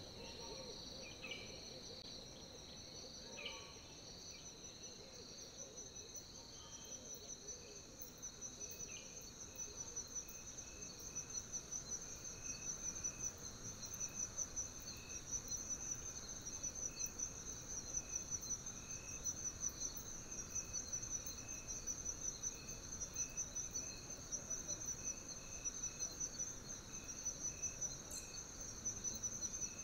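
Insects chirring steadily in a high, fast-pulsing drone, growing louder after about ten seconds, with a few short chirps near the start.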